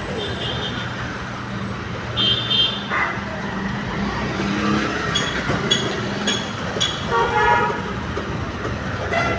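A steady engine hum, with several short vehicle-horn toots sounding over it, the clearest at the start, about two seconds in, and a longer one near the end.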